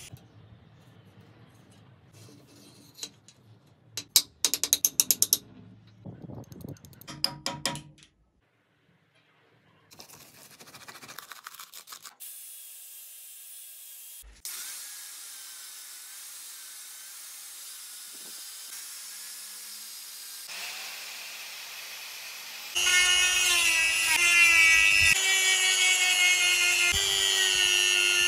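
Workshop tool sounds on a rusty steel ratchet: a few seconds in, bursts of rapid metallic clicking with ringing; later a bench grinder running with a steady hum. In the last five seconds, a loud high whine from an electric rotary tool spinning a wire brush inside the ratchet head, its pitch shifting a little as the brush bears on the metal.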